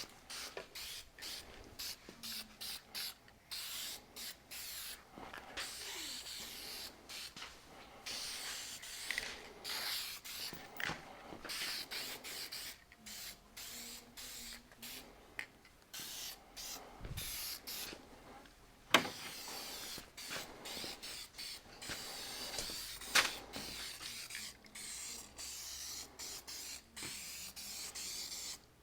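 Masking tape being pulled off the roll and torn in short strips, a run of quick rasping, tearing bursts with brief pauses between them, and two sharp clicks near the end.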